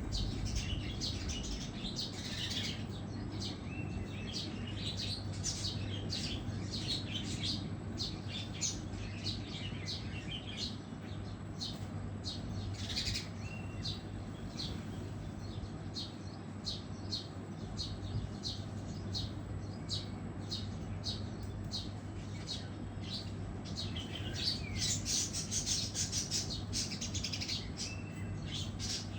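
Small birds chirping and tweeting, a dense run of short, high calls throughout, busiest near the end, over a steady low hum.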